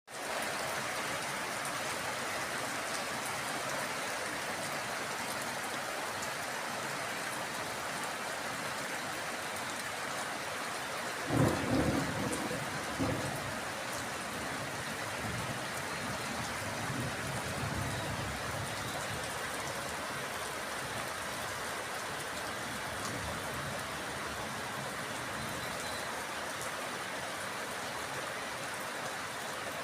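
Heavy steady rain falling during a thunderstorm. About eleven seconds in, a sharp thunderclap, followed by rolling thunder for several seconds.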